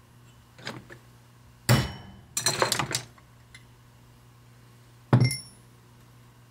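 Hammer blows on a steel bushing driver, seating a new starter bushing below the face of the brush plate: a light tap, a hard ringing strike, a quick run of blows, then one last sharp metallic clank about five seconds in.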